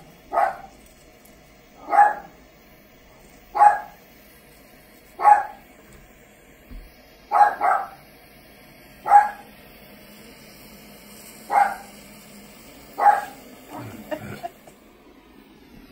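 A dog barking repeatedly: single short barks about every one and a half to two seconds, with a quicker, quieter cluster near the end.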